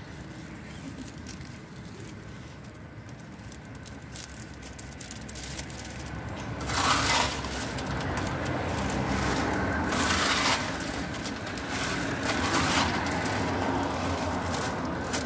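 Popcorn being scooped by hand into a thin plastic bag, the bag crinkling in three short bursts. Under it a low rumble grows louder about halfway through.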